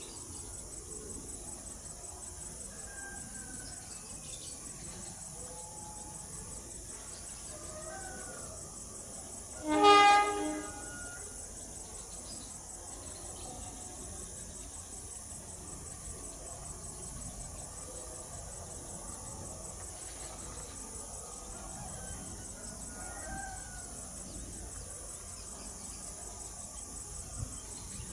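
Diesel locomotive horn sounding one short blast of about a second, about ten seconds in. Faint bird and insect chirps throughout.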